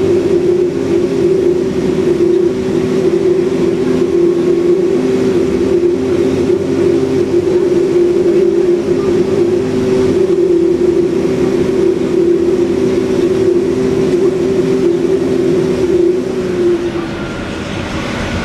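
Alexander Dennis Enviro 400 bus's Cummins ISBe diesel engine pulling hard under kickdown, with a loud, steady drone. The drone fades about two seconds before the end as the engine eases off and the sound drops to a quieter run.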